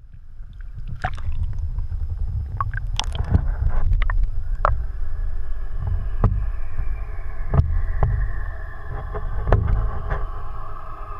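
Muffled sound picked up by a camera held under water: a steady low rumble of moving water with irregular clicks and knocks, and a faint tone that slowly falls in pitch during the second half.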